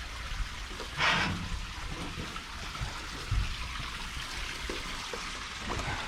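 Dirty water trickling and pouring out of a converted shop-vac pond vacuum as it sucks muck off the pond bottom, with a brief louder gush about a second in.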